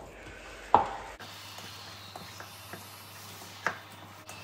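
A hand mixing and kneading minced chicken patty mixture in a bowl: a few sharp knocks against the bowl, the loudest about a second in and another near the end, with faint ticks between.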